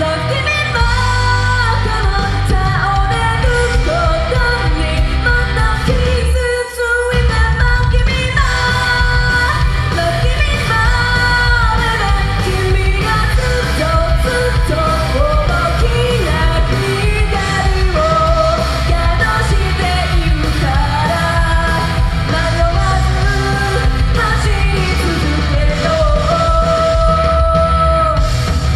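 A woman singing a pop-rock song live into a microphone over loud band accompaniment. The music drops out briefly about seven seconds in, then comes back.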